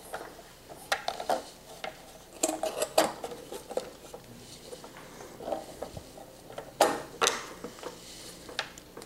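Scattered light clicks, taps and clatter of a headlight lens and trim ring being handled and seated by hand into the headlight opening of a wooden model jeep grill, with the loudest knock about seven seconds in.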